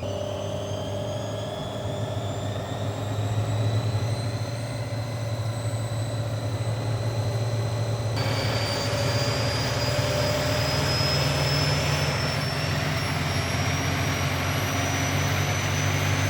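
Washing machine drum spinning up toward 1200 rpm: a steady motor hum under a whine that rises slowly in pitch, with a sudden change in the whine's tone about eight seconds in.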